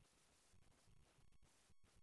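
Near silence: faint room tone and hiss.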